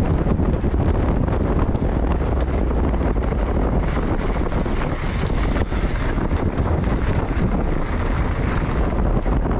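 Wind buffeting the microphone and mountain bike tyres rolling fast over a rough dirt trail, with a steady rumble and scattered knocks and rattles from stones and the bike. A brighter hiss of tyres on loose ground swells in the middle.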